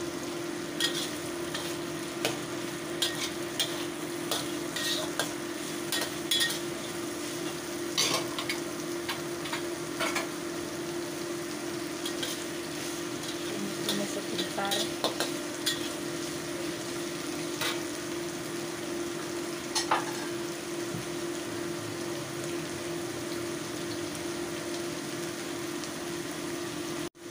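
Carrot and cucumber strips sizzling in a hot oiled wok while a metal spatula stirs and tosses them, scraping and clinking against the pan: frequent sharp clinks in the first ten seconds, only a few after. A steady hum runs underneath.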